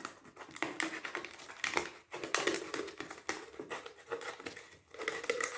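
Snap-off craft knife sawing through a thin plastic soda bottle: the plastic crackles and crinkles in a fast, irregular run of clicks, pausing briefly twice.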